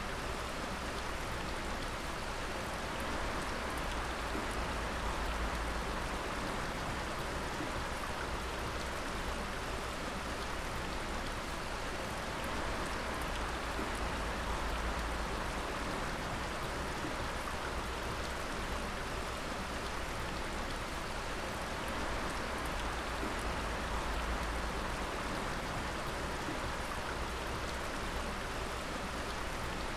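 Water dripping steadily, many drops falling and splashing in a dense, even patter over a constant watery hiss, with a low rumble underneath.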